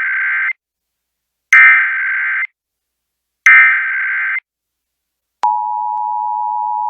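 Emergency Alert System SAME header: three short bursts of warbling data tones, each about a second long and about two seconds apart, the first already under way, encoding a Child Abduction Emergency (AMBER Alert). About five and a half seconds in, the steady two-tone EAS attention signal (853 and 960 Hz) begins.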